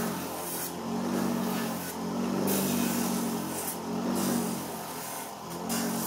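Bench grinder motor running with a steady hum while the soft foam sole of a running shoe is pressed against the spinning wheel and sanded down. The sound swells and eases in repeated passes as the sole is worked flat.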